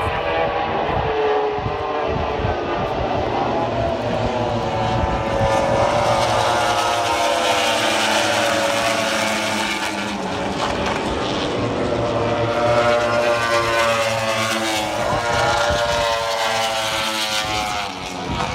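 A pack of Grand Prix racing motorcycles passing at speed, several engines at high revs at once. Their pitch rises and falls as the bikes go by and change gear.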